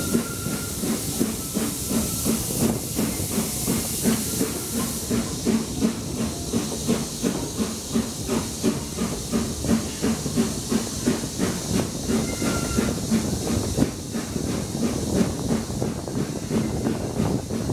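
BR Standard Class 9F steam locomotive under way, its exhaust chuffing in a steady, quick rhythm over a hiss of steam and train noise, heard from the carriage right behind the tender. The high hiss eases about five seconds in.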